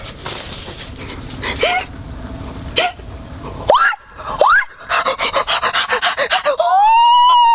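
A man's startled vocal cries: a few short rising yelps, then rapid panting breaths, then a long high-pitched scream that rises and falls near the end.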